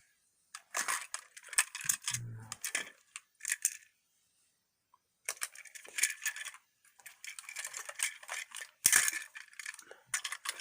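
Handling noise of a plastic Plarail toy train and its packaging: clicks, rattles and rustling in two spells, with a pause of about a second and a half around four seconds in.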